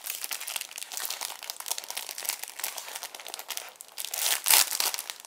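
Clear plastic packaging crinkling and crackling as hands open it and slide a paper notebook insert out of its sleeve, with a louder crackle near the end.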